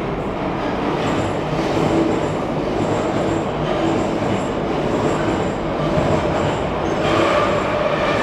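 A Moscow Metro train running along the rails in the tunnel close by: a loud, steady rumble of wheels with high, thin squealing tones from the wheels on the rails.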